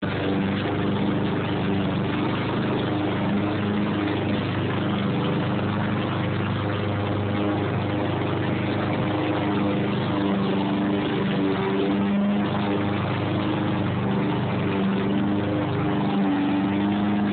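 Gas walk-behind lawnmower engine running steadily while mowing grass, holding an even pitch throughout.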